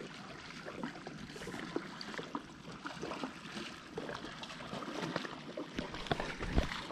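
Small water sounds, lapping and trickling, scattered with light clicks, and a soft low knock near the end.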